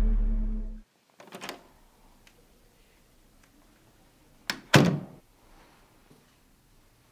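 The last low note of a music track dies away in the first second. Then a door: a soft knock, and about four and a half seconds in a sharp latch click followed by a heavier thunk with a short ring as it shuts.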